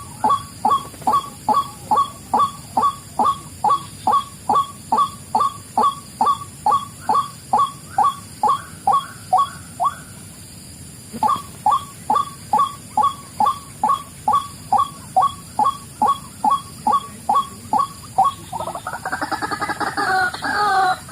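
White-breasted waterhen (ruak-ruak) calling: a steady run of short 'kwak' notes, about two a second, breaking off once for a second near the middle and then resuming. Near the end a fuller, harsher call takes over.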